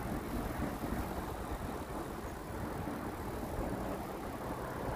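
Steady rush of wind on the microphone and road noise from riding a road bicycle, with no sharp events.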